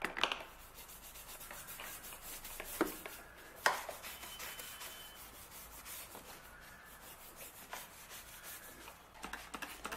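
Brush scrubbing the rubber door gasket of a refrigerator: faint, repeated scratchy strokes, with a couple of sharper knocks about three and four seconds in.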